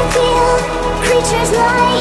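Electronic pop music with a sung or synth melody over a steady beat.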